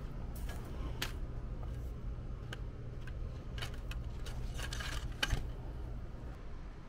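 Low steady wind rumble on the microphone, with scattered light clicks and rustles from the handheld camera being moved. The sharpest click comes a little after five seconds in.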